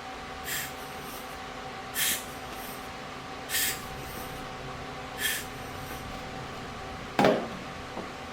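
Four short puffs of air, about a second and a half apart, blown at lens glass to clear dust. A single louder knock follows near the end.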